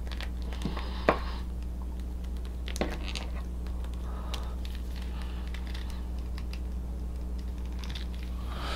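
Small plastic clicks and taps from a NECA action figure's parts being handled and moved, with one sharper click about a second in, over a steady low hum.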